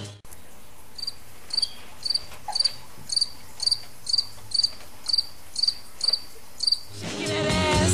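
A cricket chirping in an even rhythm, about two short high chirps a second, over a quiet background after the music cuts off suddenly; the music fades back in near the end.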